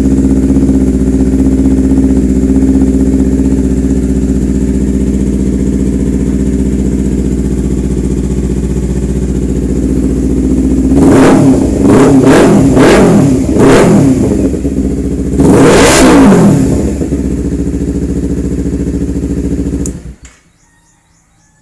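Kawasaki Ninja sport bike engine idling steadily, then blipped four times in quick succession and revved once more for longer before settling back to idle. The sound cuts off abruptly near the end.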